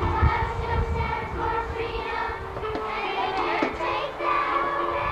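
A group of children singing a song in held notes. A low rumble underneath dies away after the first second or so.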